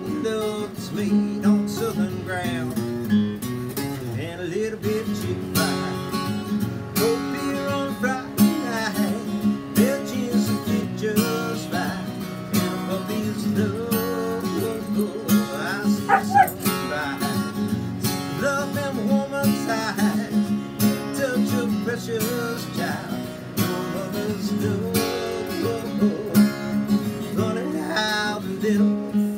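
Acoustic guitar strummed in a steady rhythm, with a wavering howl sliding up and down over it at times.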